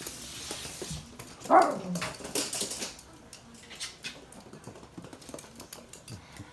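Toy poodle barking once, loudly, about one and a half seconds in, with dog claws clicking and skittering on a hard floor as the dogs play.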